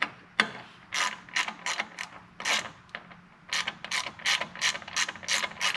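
Small socket ratchet clicking in a series of short strokes as the MAP sensor bolt is run down into an aluminium spacer block. The strokes are spaced out at first, then come quicker, about three or four a second, after a short pause midway.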